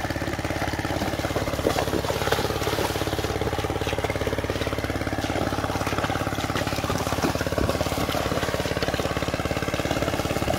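A small engine running steadily at a constant speed, with a fast, even chugging and no change in pitch.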